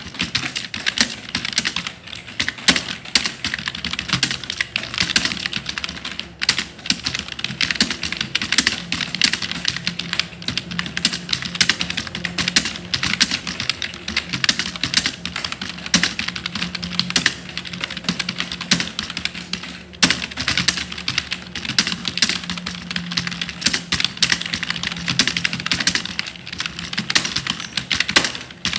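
Fast, continuous typing on a computer keyboard: a dense stream of key clicks with a few louder strokes, over a faint low hum.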